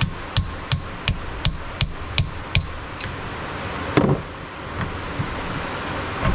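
Hammer striking a brass drift held against the gear stack on a T-90 transmission mainshaft: a run of sharp metallic taps, about three a second, stopping after about two and a half seconds. A louder, duller clunk follows about four seconds in.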